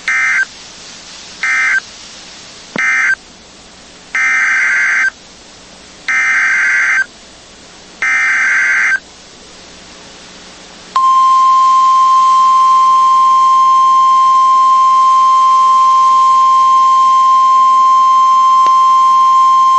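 NOAA Weather Radio SAME (Specific Area Message Encoding) digital data bursts. Three short end-of-message bursts come first, then three longer header bursts of about a second each for the next alert. About eleven seconds in, the steady 1050 Hz weather radio warning alert tone starts and holds one unbroken high tone for about nine seconds, the signal that a new alert message follows.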